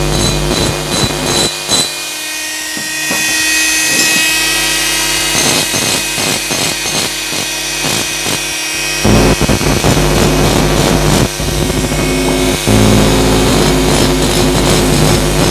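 Mini grinder running at high speed with a steady whine, its carbide bit grinding the rough cast 'orange-peel' surface out of a motorcycle cylinder head's port. The tone shifts as the bit is pressed into the metal and eased off, getting fuller about nine seconds in.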